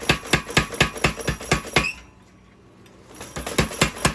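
Power hammer striking a hot Damascus steel bar in a rapid, even run of blows, about five a second, drawing out a knife tang. The blows stop for a little over a second midway, then start again.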